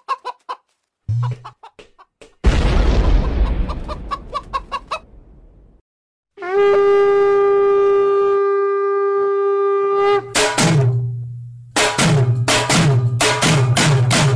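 A few short intro sound effects, then a conch shell blown in one long, steady note for about four seconds. Dance music with a steady drum beat starts at about ten seconds.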